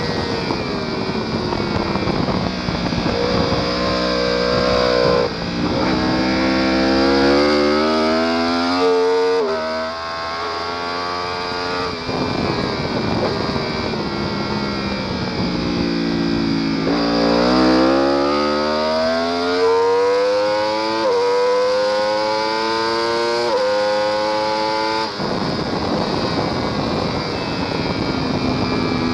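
Sport motorcycle engine at full throttle, its pitch climbing and dropping back at each upshift, twice. It then winds down for several seconds as the bike slows, and accelerates again through two more upshifts. Heavy wind rush throughout.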